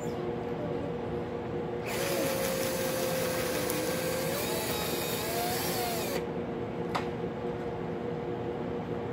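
Cordless drill spinning a coloured pencil inside a handheld pencil sharpener: a steady motor hum throughout, with a louder hissing stretch from about two to six seconds in as the blade shaves the pencil.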